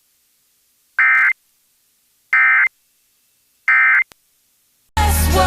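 Three short, buzzy digital data bursts about a second apart: the EAS/SAME end-of-message tones from NOAA Weather Radio, signalling the end of the alert message. Near the end, a loud burst of harsh, noisy sound with a low hum cuts in.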